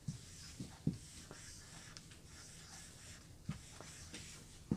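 Faint scratching of handwriting, with a few soft knocks now and then.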